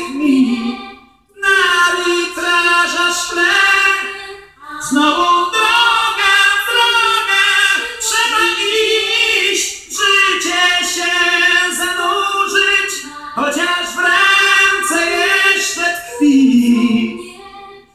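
Rock record playing on a turntable: an unaccompanied passage of layered voices singing in close harmony, in phrases broken by brief pauses, with no bass or drums.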